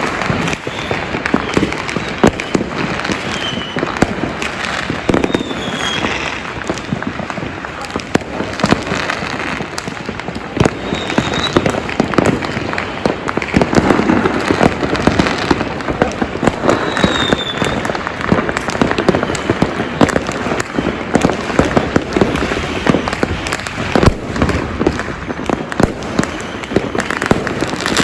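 Fireworks and firecrackers going off continuously, dense overlapping bangs and pops near and far, with a few short whistles now and then.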